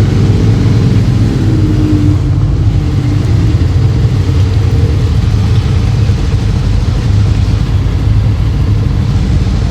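Motorcycle engine running steadily, a loud continuous low rumble with no revving up or down.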